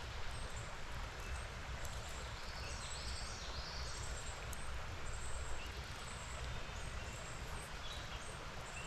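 Steady outdoor noise of stream water and wind rumbling on the microphone, with a few faint high chirps about three seconds in.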